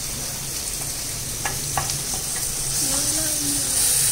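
Onions and tomatoes sizzling in oil in a kadai, with a wooden spatula knocking a couple of times as pressure-cooked mutton is scooped in. The sizzle grows louder near the end as the meat goes into the hot pan.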